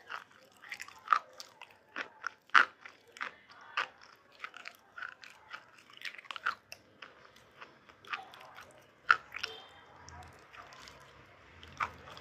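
Close-up biting and chewing of a brittle, crunchy item, with sharp irregular crunches several times a second that thin out and grow fainter near the end.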